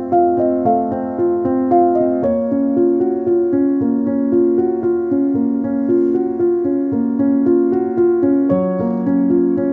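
Background instrumental music on a piano-like keyboard: an evenly paced, repeating melody over held chords, with the harmony shifting about two seconds in and again near the end.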